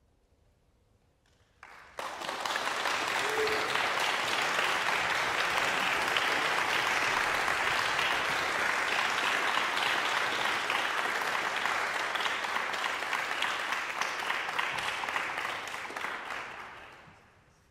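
Audience applauding, starting abruptly about two seconds in after a short silence, holding steady, then dying away near the end.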